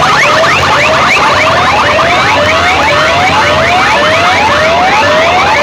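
Electronic siren effect played loud through a DJ sound system: quick, repeating rising whoops in overlapping layers over a steady low hum.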